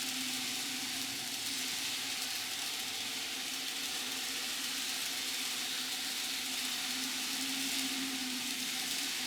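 Rokuhan Z gauge model train, an EF81 locomotive pulling a full rake of 24-series coaches, running on its track: a steady hiss of small wheels on the rails with a faint low motor hum.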